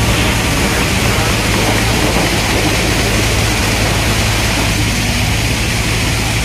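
JCB tracked excavator's diesel engine running steadily under load as it swings a bucket of sand to the truck: a steady low hum under a loud, even hiss.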